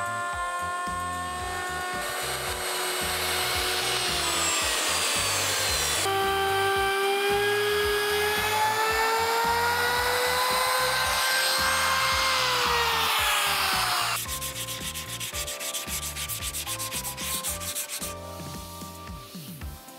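Electric router whining as it cuts along the edge of a solid-wood tabletop, its pitch dropping under load and as it winds down; a compact trim router then starts, rises in pitch and runs down. About fourteen seconds in, sandpaper is rubbed by hand over the wooden edge in quick strokes.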